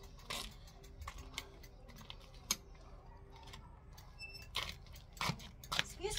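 Scattered light clicks and rattles from a mountain bike being wheeled along by hand, a few sharper ticks among them.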